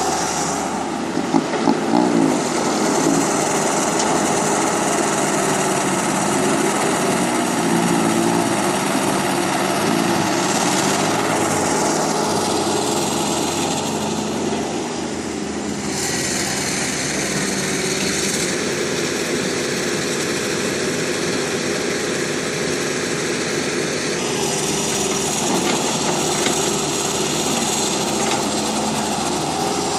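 Small electric motors of radio-controlled toy construction vehicles (excavator and dump truck) running with a steady whine, its pitch stepping up and down as they work. There is a falling sweep around eleven seconds in.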